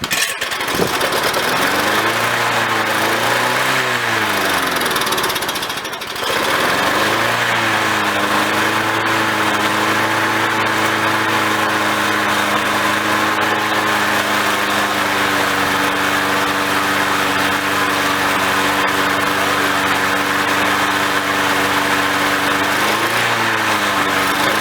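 Victa lawnmower's Briggs & Stratton engine starts and runs. Its speed rises and falls unevenly for the first few seconds and dips about six seconds in, then it settles into a steady run, wavering again near the end.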